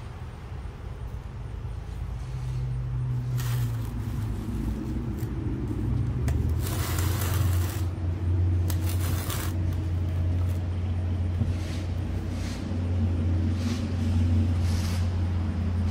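A steady low engine hum, swelling a little about a third of the way in, with intermittent scraping and rasping of bedding sand as it is pushed by hand and screeded flat with a level dragged over steel screed pipes.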